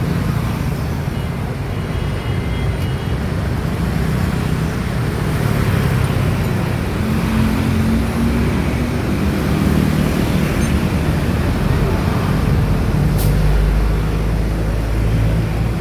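Steady road traffic noise with a motorbike engine running, heard while riding through city streets. The low rumble swells for a few seconds near the end.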